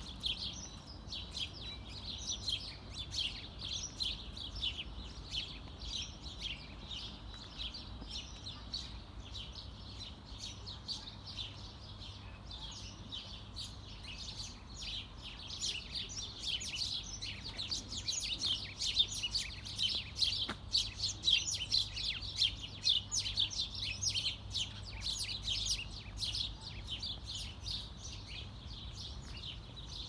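Small birds chirping and singing in the trees, a continuous chatter of quick high notes from several birds at once, busiest and loudest from the middle of the stretch on, over a steady low background rumble.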